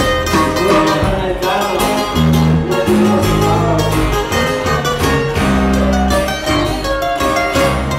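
A band playing, with plucked guitar lines over a bass line that changes note about once a second.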